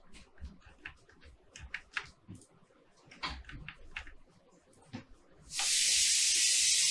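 Faint, scattered clicks of a computer keyboard and mouse. About five and a half seconds in, a loud, steady high-pitched hiss starts suddenly and holds.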